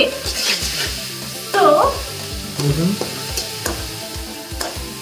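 Chopped onions sizzling in oil in an aluminium kadai while a spoon stirs them, with repeated scrapes and clicks of the spoon against the pan. This is the stage of frying the onions until they brown.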